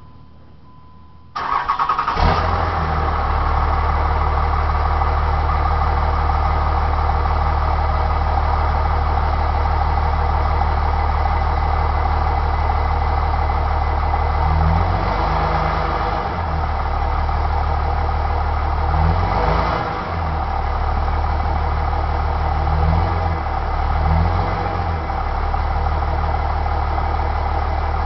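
2004 Dodge Ram 3500's 5.9 L Cummins inline-six turbodiesel cranking and catching about a second in, then idling steadily through its stock exhaust. The engine note briefly rises a few times in the second half.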